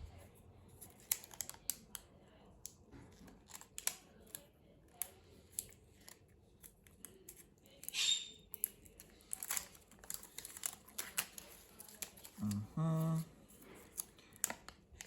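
Small sharp clicks, taps and scrapes of handling a plastic video doorbell and small screwdriver while unscrewing its back plate, irregular throughout, with a short voiced hum near the end.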